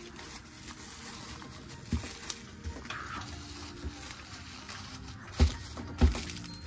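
Clear plastic wrap crinkling as gloved hands wrap and press a dye-soaked tie-dye bundle, with scattered small clicks and two thumps near the end as the bundle is pressed against the counter.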